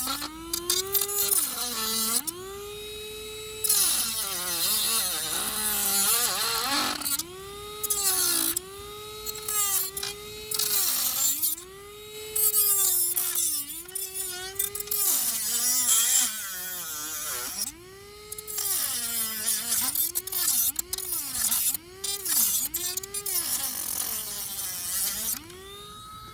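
Dremel-type rotary tool with a cutting disc, whining at high speed while cutting the TV bezel. The pitch repeatedly sags and recovers as the disc bites in and is eased off, with a hiss of cutting over it.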